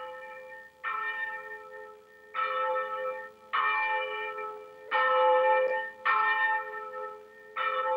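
Church bell tolling: about seven strokes a second or so apart, each left ringing into the next.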